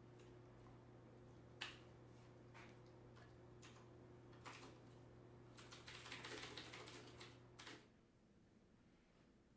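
Near silence: a low steady room hum with a few faint clicks about a second apart, then a denser patch of soft clicks and rustling for about two seconds; the hum drops away near the end, leaving quieter room tone.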